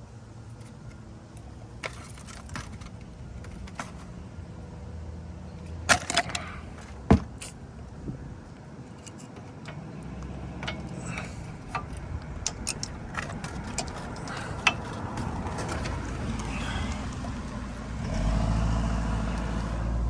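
Scattered clinks and knocks of tools and metal brake parts during brake pad work on a car wheel, with a few sharp knocks about six and seven seconds in. A low rumble comes up near the end.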